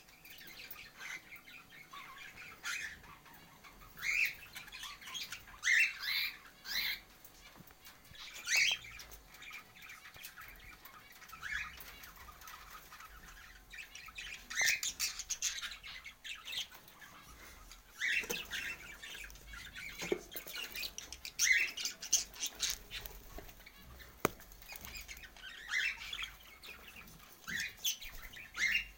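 Pet birds giving short chirps and squawks, with bursts of wing flapping.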